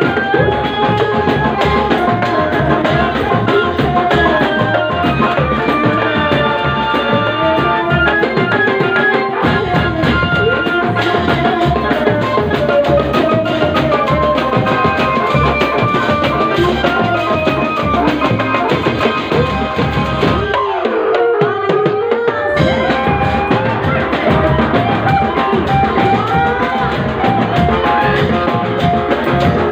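Loud amplified music: a woman singing into a microphone over a steady drum beat. The music briefly drops away about two-thirds of the way through, then resumes.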